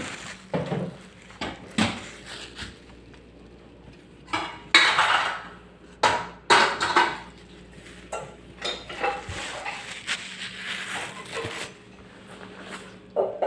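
Irregular metallic clinking and scraping in bursts, as of metal tools or parts being handled during the repair, over a faint steady low hum.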